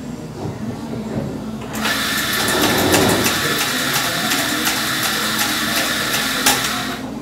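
Electric coffee grinder running steadily for about five seconds, starting abruptly about two seconds in and cutting off near the end, as beans are ground for an espresso-based drink.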